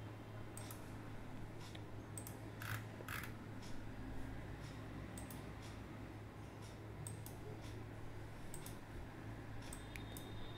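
Faint scattered clicks of a computer mouse over a low steady hum of room tone.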